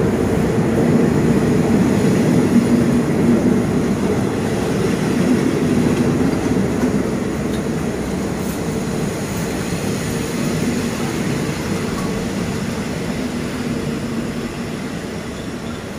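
Diesel-hauled express passenger train rolling slowly along the platform, giving a steady low drone. The drone slowly fades as the train pulls away.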